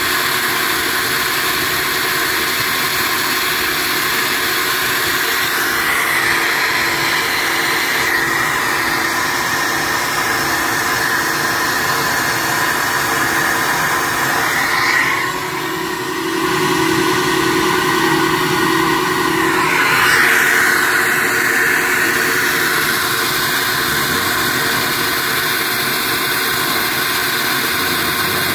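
Flowbench drawing air through a cylinder head's intake port: a loud, steady rush of air over the bench motor's drone. Its tone shifts as the valve lift is changed; about halfway in the rush dips and a faint steady whistle sounds for some five seconds before the fuller rush returns, in a run where the flow separated over the port's short side.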